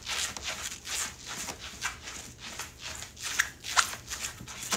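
Plush slippers scuffing and patting on a wooden floor as someone dances in them, an irregular run of soft shuffling steps.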